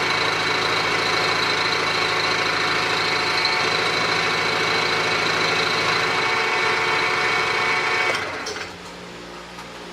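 Milling machine spindle running with an end mill cutting a light finishing pass, taking a couple of thousandths off the recess wall of a chuck backing plate; a steady whine with cutting noise. About eight seconds in the cutting sound drops away sharply, leaving a quieter steady hum.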